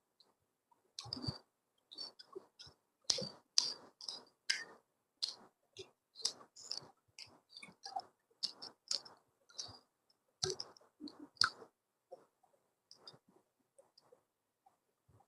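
Close-miked chewing of food, with wet mouth clicks and smacks coming in quick, irregular bursts. About twelve seconds in they thin out to sparse, fainter clicks.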